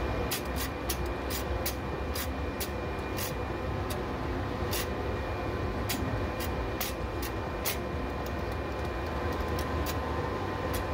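Benchtop thickness planer running with a steady high whine over a low rumble, with irregular sharp ticks throughout: "the most annoying sound in the world".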